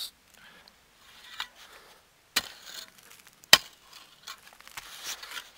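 Scraping and crumbling of earth and rubble as a buried glass bottle is worked loose by hand, with scattered small clicks and two sharp knocks about a second apart near the middle, the second the loudest.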